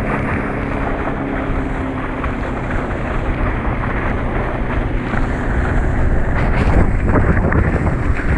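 Wind buffeting the microphone and water hissing and spraying off a pair of water skis towed at speed behind a boat. A faint steady engine hum sits underneath in the first few seconds. The rush grows a little louder near the end.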